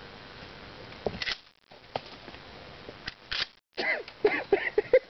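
A single sharp bang from a 12-gauge shotgun firing a slug, about a second in. From about four seconds in, a man laughs in short, rapid bursts.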